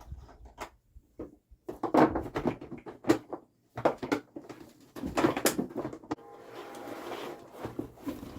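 Irregular knocks, clicks and rustling of parts being handled and fitted together as an electric pressure washer is reassembled. The louder knocks fall about two, three, four and five seconds in.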